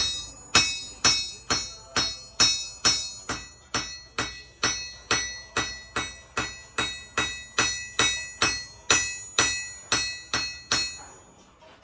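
Blacksmith's hammer striking hot rebar steel on an anvil while forging a knife blade, in a steady rhythm of a little over two blows a second, each blow ringing with a clear metallic tone. The hammering stops about a second before the end.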